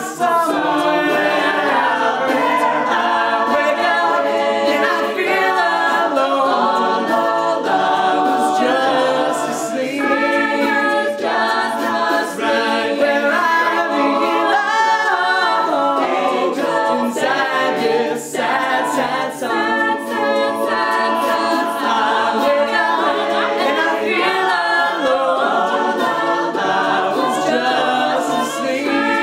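An a cappella vocal group sings a multi-part arrangement in harmony, with no instruments.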